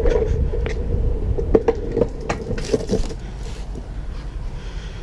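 Longboard wheels rolling over brick and concrete paving: a low rumble with a steady hum and a few sharp clicks, getting quieter after about three seconds.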